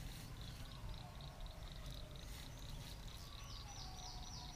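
Faint outdoor ambience by a wooded pond: a steady high pulsing of insects, a bird singing a quick run of falling notes from about three seconds in, and a low rumble underneath.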